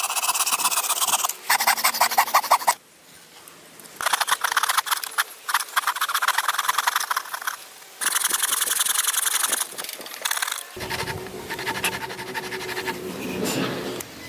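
Fast, rhythmic scraping strokes of a hand tool working wood, in several short stretches that break off suddenly and start again. Near the end the sound turns lower and steadier.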